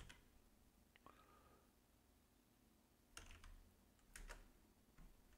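Near silence broken by a few faint computer keyboard keystrokes, about three seconds in, again a second later and near the end.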